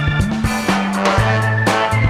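Music with a bass line moving in held notes and a steady drum beat.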